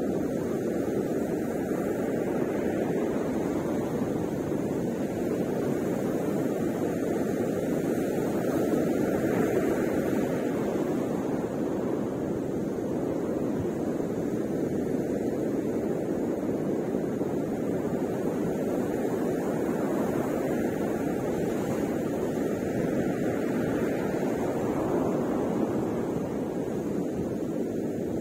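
Ocean surf breaking on the beach: a steady rushing roar that swells twice as bigger waves come in.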